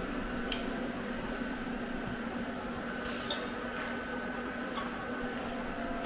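Steady mechanical hum with a few light metallic clinks and taps scattered through it.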